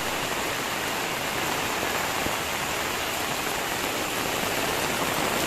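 Steady rain falling: an even rushing sound without a break.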